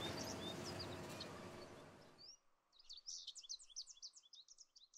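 Faint birds chirping: quick high chirps and short whistles over a steady outdoor hiss, which cuts out a little after two seconds, leaving a denser run of chirps on their own.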